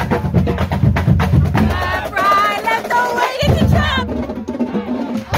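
Marching drumline of snare drums and bass drums playing a fast, dense run of strokes, with crowd voices shouting over it partway through.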